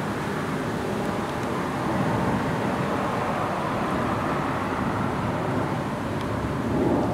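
Jet engine noise from a Boeing C-17 Globemaster III's four turbofans as the transport flies overhead: a steady, even rumble with no distinct tones.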